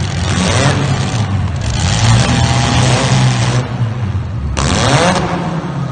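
Demolition derby cars' engines running and revving, with rising pitch sweeps as they rev and loud stretches of broad noise.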